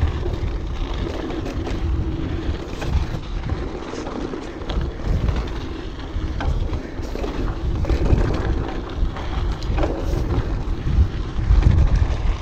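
Orbea Alma mountain bike ridden over rocky trail: tyres crunching over rock with frequent knocks and rattles from the bike, under a heavy low rumble of wind buffeting the microphone.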